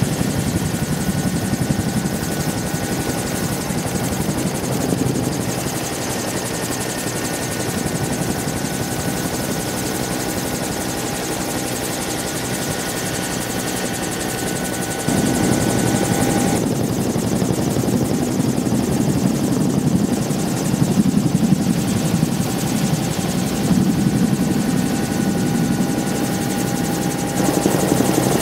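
Helicopter in flight: steady rotor noise with a high turbine whine over it. The low rumble grows louder about halfway through.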